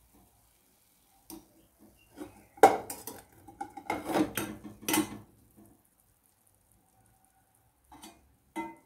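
Steel slotted skimmer knocking and scraping against a small stainless steel pan as fried gulab jamun are scooped out of the oil: a run of short metallic clinks in the first half, a lull, then two more clinks near the end.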